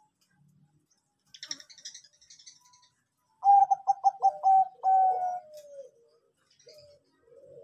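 Zebra dove (perkutut) cooing: a quick run of short notes about three and a half seconds in, ending in a held note that slides down in pitch, then softer, lower coos near the end. A brief higher-pitched chatter comes before the coo.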